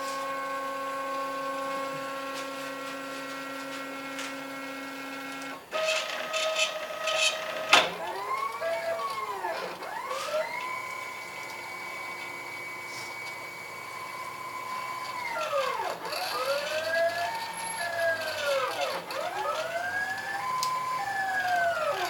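CNC router's stepper motors whining as the gantry moves: a steady whine at first, a few sharp clicks about six to eight seconds in, then repeated whines that rise, hold and fall in pitch as the axes speed up and slow down between moves.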